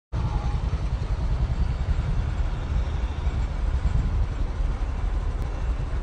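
Roadside street noise dominated by a steady low rumble, with no voices.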